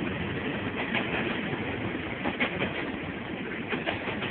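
Freight train cars rolling past over jointed rail: a steady rumble of wheels and rolling stock, with irregular sharp clacks as the wheels cross the rail joints.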